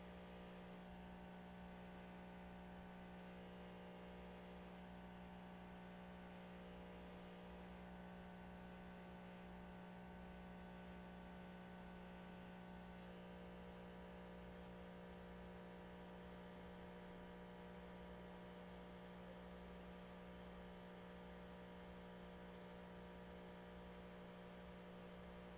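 Near silence: a faint, steady electrical hum made of several constant tones.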